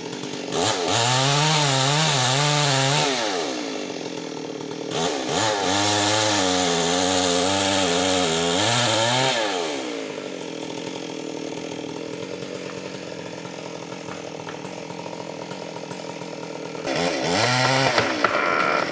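Stihl MS 381 two-stroke chainsaw cutting hard trembesi (rain tree) wood. It is run at full throttle in three bursts, the second and longest lasting about five seconds, with its pitch wavering under the load, and it drops back to idle in between.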